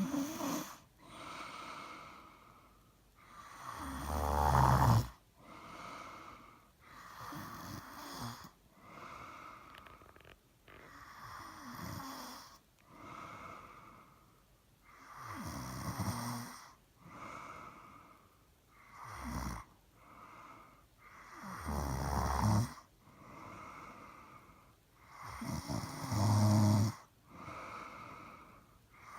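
A person snoring, one breath every two to three seconds, with several much louder, deep snores standing out, like an engine trying to start.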